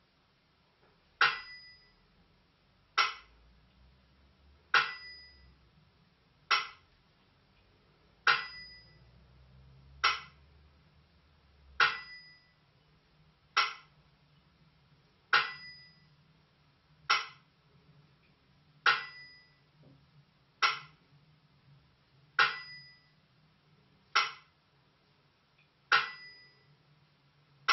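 Burmese si and wa keeping time: a ringing stroke of the small si bell-cymbals alternating with a dry click of the wa clapper, one stroke about every 1.8 seconds, a slow even beat for the dance.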